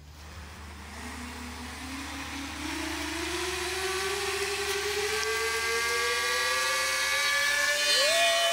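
Four Emax Eco 2807 1300 kV brushless motors with propellers on a homemade quad-tiltrotor VTOL spooling up for a vertical takeoff. Their whine rises steadily in pitch and loudness as the throttle comes up. Near the end the pitch jumps and splits into several tones as the plane tips over onto its side.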